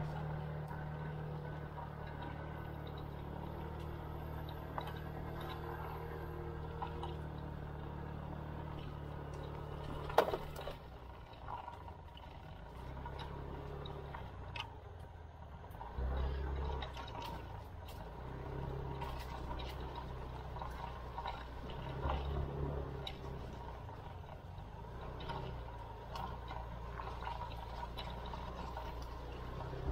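SYM KRN scooter's single-cylinder engine running at low throttle while riding a rough trail, its hum rising and easing a few times. There is one sharp knock about ten seconds in.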